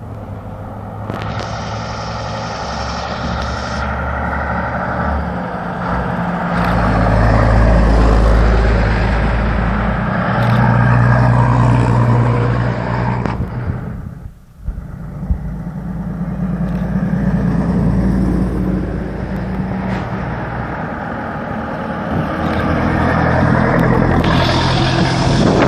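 Heavy trucks' diesel engines running as they pull away and pass close by, with the engine note stepping up and down several times as they accelerate and change gear. The sound briefly drops away about halfway through.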